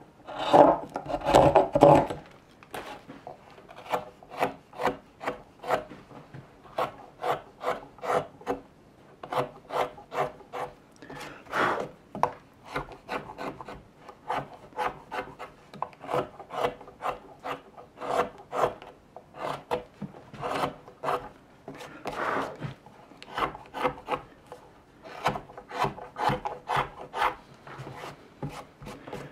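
Hand tools carving raw green birch: a few heavier cuts from a wide gouge in the first couple of seconds, then a hook knife scooping out the inside of a wooden cup in runs of short, quick cuts, a few a second, with brief pauses.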